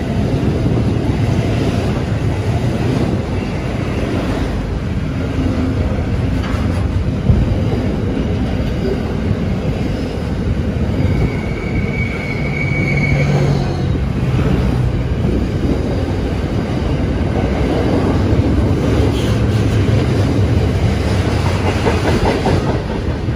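Container freight train's wagons rolling past, a steady rumble and clatter of wheels on the rails, with a high wheel squeal lasting a couple of seconds about halfway through.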